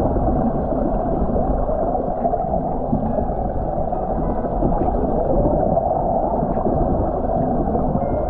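Waterfall water rushing and gurgling, heard muffled and steady, as with the camera pushed into the water beneath a rock overhang.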